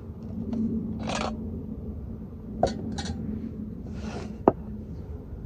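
Small objects being handled: a few light clicks and knocks, the sharpest about four and a half seconds in, with short rustles between them over a steady low background.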